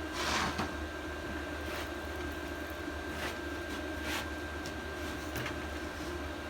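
Steady low background hum with a thin steady whine above it, a brief rustle near the start and a few light, scattered clicks of parts and tools being handled on the edger.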